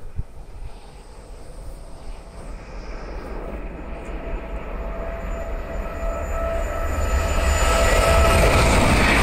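A train approaching on the East Coast Main Line, its noise building steadily over several seconds from a low rumble to a loud rush, with a faint steady whine growing in along the way. Wind rumbles on the microphone throughout.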